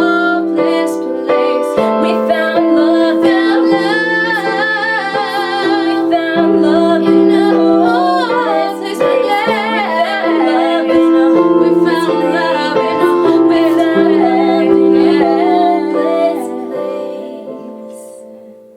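Female vocals singing over sustained piano-keyboard chords in a pop song cover. The music fades out over the last few seconds.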